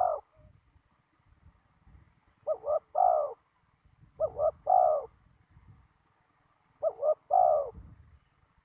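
Spotted dove cooing: three phrases a little under two seconds apart, each two short coos followed by a longer one.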